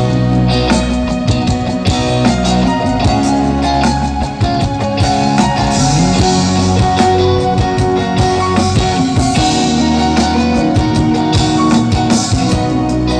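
Instrumental music with guitar and a drum beat, with no singing: an instrumental passage of a Hindi film song.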